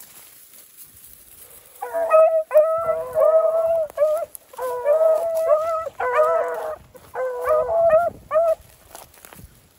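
Beagle puppies baying, two young voices overlapping in long wavering notes that rise at their ends, in several bouts starting about two seconds in and stopping shortly before the end.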